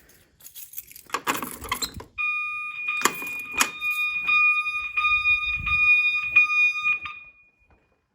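Metallic rattling and clicks, then a fire alarm sounder on a Firelite 9200 system starts about two seconds in. It gives a steady, loud, high electronic tone with a faint click about twice a second, and stops about seven seconds in.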